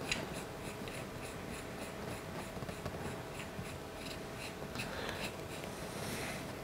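A 3D-printed PLA nut being screwed by hand along a printed PLA screw, the plastic threads rubbing with a faint scratchy run of quick ticks.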